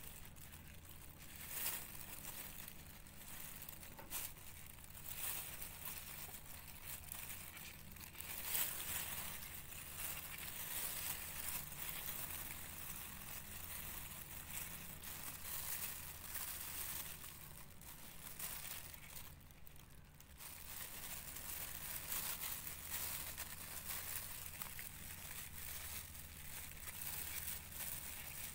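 Clear plastic bags worn over the hands crinkling and rustling in short, irregular crackles as the hands work.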